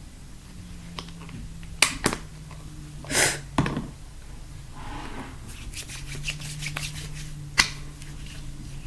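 Hands handling small objects close to the microphone: a few sharp clicks and taps, and a brief rustle about three seconds in.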